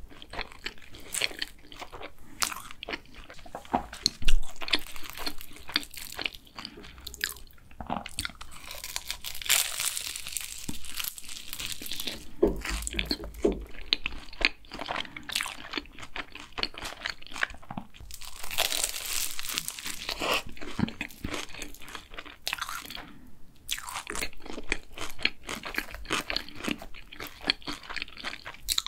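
Close-miked chewing of a flaky raspberry-filled cronut: dense crackling crunches of the pastry layers, with a single sharp, loud crunch about four seconds in.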